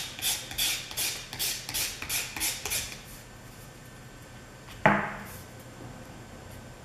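Quick scratchy strokes, about three a second, of a Master Airscrew 9x5 propeller being hand-sanded on its heavy side to take off a little material and balance it; the strokes stop about three seconds in. Near the end comes a single sharp knock with a short ring.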